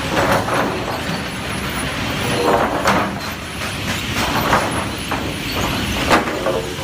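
Sawmill machinery running, a steady mechanical noise with louder surges every second or so.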